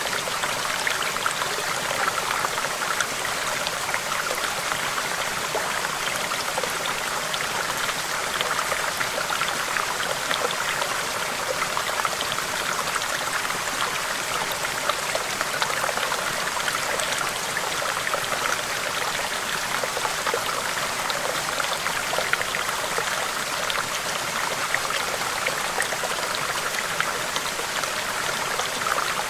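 Stream of water babbling over rocks: a steady, even rush with fine splashing.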